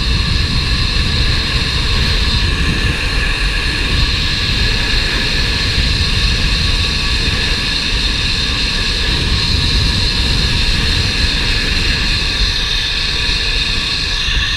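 Zip-line trolley running fast along the steel cable with a steady high whine, over heavy wind buffeting the rider-mounted camera's microphone at speed.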